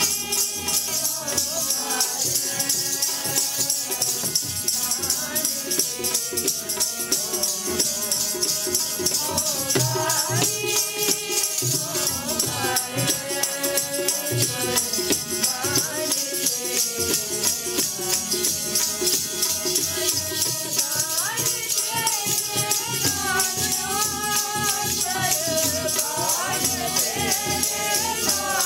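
Sikh kirtan: voices singing a hymn together over a fast, constant metallic jingling rattle.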